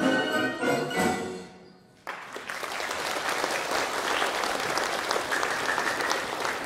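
An orchestra of Russian folk instruments (balalaikas, domras) with synthesizers plays its last chords, which die away; about two seconds in, audience applause breaks out suddenly and keeps going.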